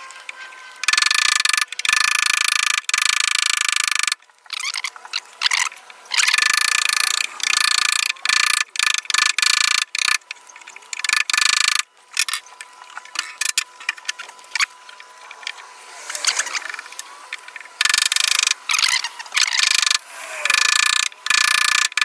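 Steel wood chisel paring and scraping across a wooden block, in rough, high-pitched scraping runs of a few seconds each, with short knocks and taps between them.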